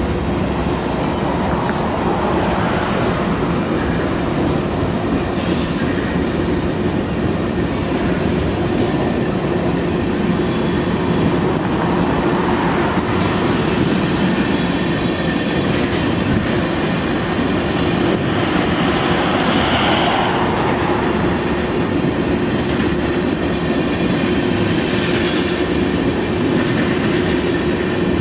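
Freight train of boxcars and tank cars rolling past: a loud, steady rumble of steel wheels on the rails that goes on without a break.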